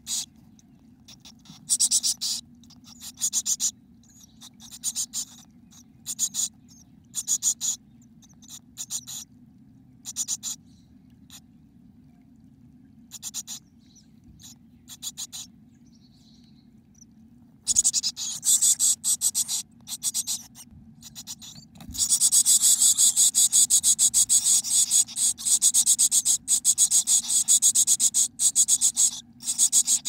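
Chickadee nestlings begging in the nest box: short, high, rapidly pulsing buzzy calls about once a second, turning after a knock about two-thirds of the way in into a nearly continuous loud chorus.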